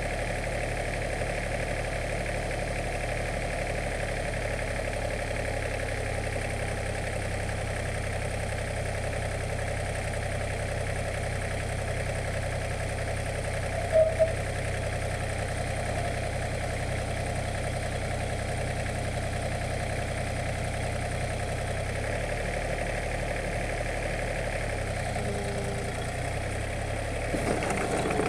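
Excavator's diesel engine idling steadily, with two brief sharp sounds about halfway through; near the end the engine gets louder and its note changes.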